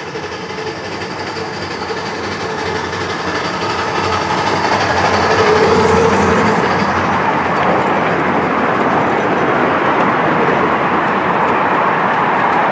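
Miniature steam railway train passing close by: a 0-4-2T tank engine hauling small passenger coaches, their wheels rumbling along the rails. It grows louder over the first six seconds as the coaches roll past, then holds steady.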